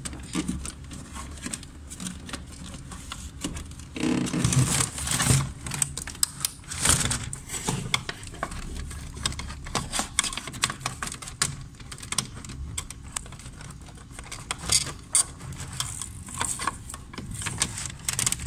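Irregular clicks, knocks and rustles of computer cables and a monitor being handled on a wooden desk while a screen is plugged in, over a steady low hum.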